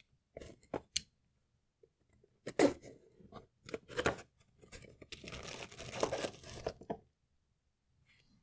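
Cardboard box and its packing being opened and rummaged through: irregular tearing, scraping and crinkling, with a sharp loud crack about two and a half seconds in and the busiest tearing between about five and seven seconds in, then quiet near the end.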